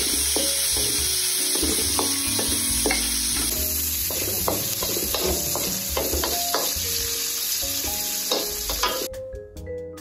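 Roast pork and minced garlic sizzling in hot oil in a wok, stirred with a spatula whose strokes scrape against the pan. The sizzling cuts off abruptly about nine seconds in, leaving vibraphone-like background music.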